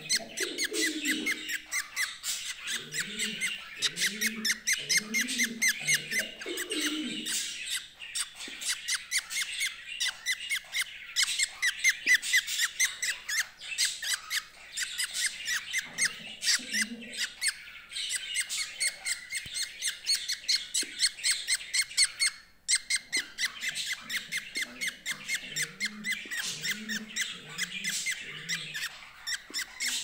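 Baby budgerigar chick cheeping: short high squeaks repeated rapidly, several a second, with two brief breaks, one about a quarter of the way in and one about three-quarters in. Fainter, lower calls come and go underneath.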